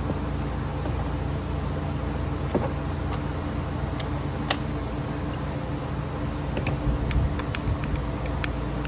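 Scattered light metallic clicks and taps of small carburetor parts and tools being handled during a carburetor teardown, coming thicker near the end, over a steady low hum.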